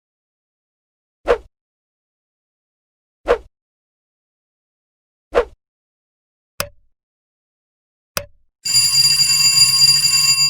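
Short sharp hits about every two seconds, then two clicks, then a loud bell-like ringing of several steady tones with a fluttering level, starting near the end.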